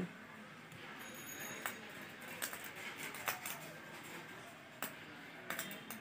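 Light clicks and taps from handling wires and small tools on a workbench, about seven scattered over a few seconds, over a faint steady hiss.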